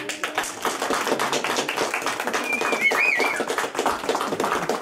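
A small group of people applauding with steady, dense clapping, and a brief high whistle about halfway through.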